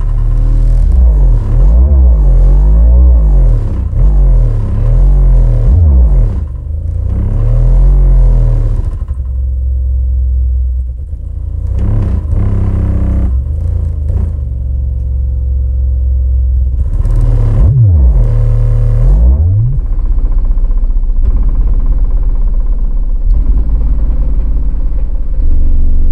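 Massive Audio BOA 12-inch subwoofer playing loud bass music, with deep bass notes that glide up and down and short breaks between phrases. Knocking and rattling come along with it: objects near the subwoofer shaking, not the subwoofer itself.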